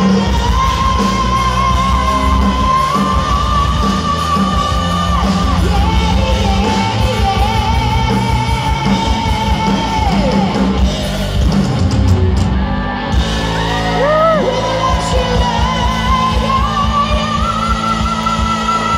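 Live heavy metal band playing loud: a singer holding long notes over distorted electric guitar, bass and drums, with the pitch sliding and wavering around the middle.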